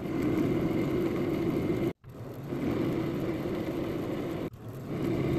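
Metal lathe running under power with a steady hum while a threading tool takes a pass along a steel rod. The sound breaks off abruptly just before two seconds in and dips briefly again later.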